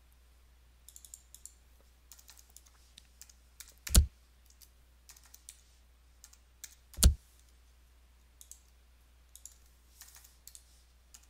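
Typing on a computer keyboard in short runs of light key clicks, with two much louder sharp clicks about four and seven seconds in.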